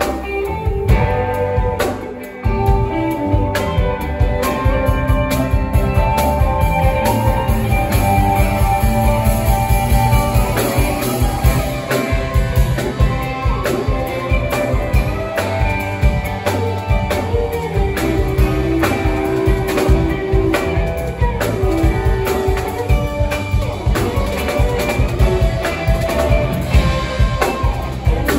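Live rock band playing: electric guitars over a drum kit keeping a steady beat, with a brief break in the sound about two seconds in.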